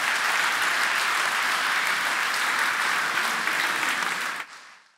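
Large audience applauding steadily, then fading out near the end.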